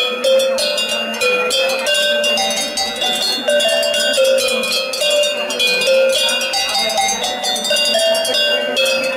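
A row of metal cowbells of different sizes hung from a wooden pole, struck in quick succession to play a ringing, stepping melody.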